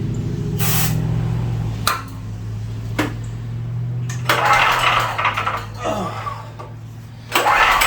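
A short hiss of carb cleaner sprayed in as starting fluid, then clicks and two rough, rasping pulls on the generator's recoil starter. The engine does not catch.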